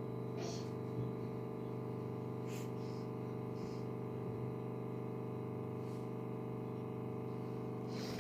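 A steady electrical-sounding hum with a few faint clicks and rustles.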